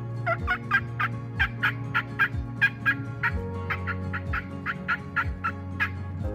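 A quick run of short, sharp turkey-like calls, about three to four a second, made by a person calling like a turkey, over soft background music with a steady beat.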